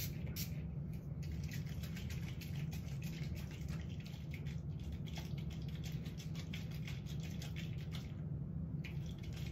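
Makeup setting spray pumped from a mist bottle again and again in short hisses, several a second, stopping about eight seconds in.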